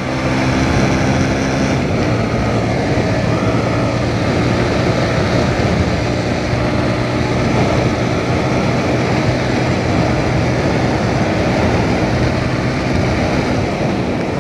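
Motorcycle engine running at speed under heavy wind rush on the microphone. A steady low engine hum sits beneath the wind noise and is clearest in the first couple of seconds.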